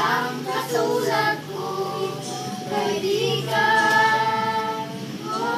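Girls and a woman singing a song together, holding several long notes in the second half.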